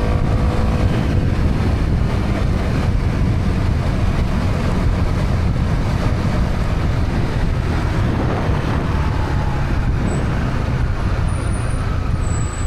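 Honda CB125R's single-cylinder four-stroke engine running on the move through its stock exhaust, mixed with steady low wind rumble on the microphone.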